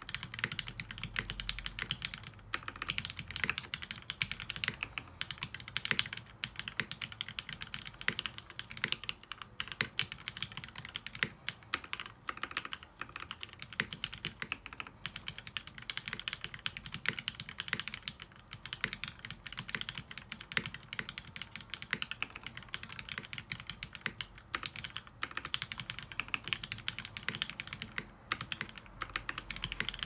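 TGR Jane V2 mechanical keyboard typed on steadily and quickly, a continuous run of keystrokes with no pauses. It has lubed vintage black Cherry MX linear switches with 60 g springs on a brass plate, and lubed stabilizers.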